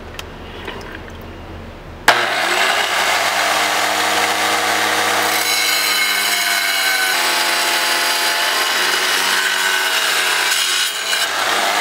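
Wet tile saw switched on about two seconds in, then running with a loud, steady whine and hiss as its blade slices through a silver- and nickeline-bearing rock. The tone of the motor and blade shifts partway through as the rock is pushed into the cut.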